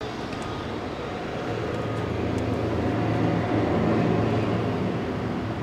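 1922 Ford Model T's four-cylinder side-valve engine running steadily. It swells louder over a couple of seconds in the middle, then eases back.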